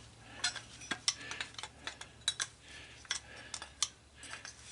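Channel-lock pliers working the crimped edge of a gas-stove part's sheet-aluminum top, bending and wiggling it loose: a string of irregular light metallic clicks and clinks.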